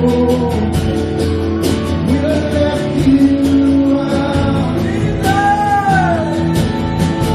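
Live church worship music: a band playing with voices singing a slow praise song.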